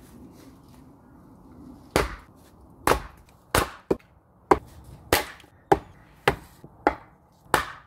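Axe chopping into wood on a chopping block: about ten sharp strikes a little over half a second apart, starting about two seconds in.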